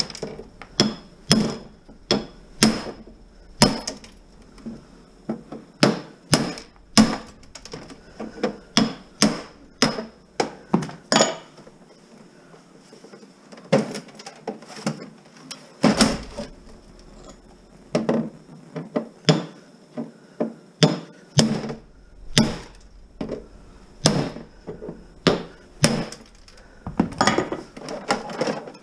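Axe striking the side of a TV cabinet again and again, sharp blows about one or two a second, with a short pause about halfway through.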